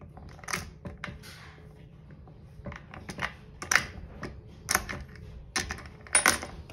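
Scattered light clicks and taps of a metal washer and screw being set by hand into a toilet seat hinge bracket on the bowl, about ten of them at uneven spacing.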